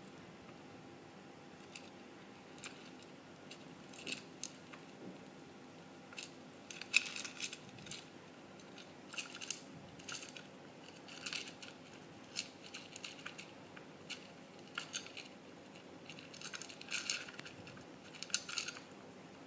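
Seeds and pellets clicking and rattling in a food bowl as a dwarf hamster digs through it and pushes food out, in irregular clusters of small clicks; the loudest comes about seven seconds in.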